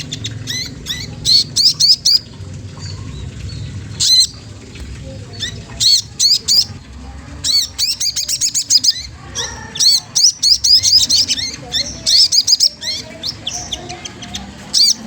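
Sogon trotol calling: quick series of sharp, high chirps in repeated bursts with short pauses between them.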